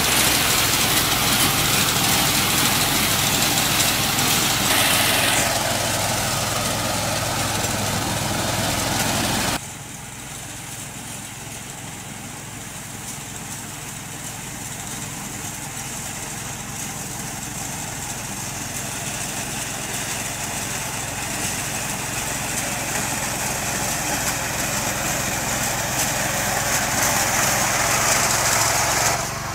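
Kisan Kraft KK-1201P walk-behind reaper's 5.7 HP four-stroke petrol engine running steadily as the machine cuts standing paddy. About ten seconds in the sound drops suddenly to a quieter, more distant level, then slowly grows louder as the reaper comes closer.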